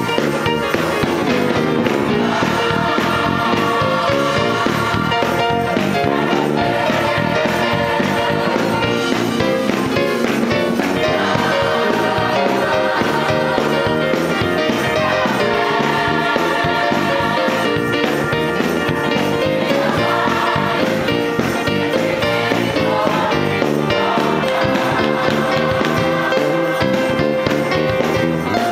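Gospel choir singing with instrumental accompaniment and a steady beat.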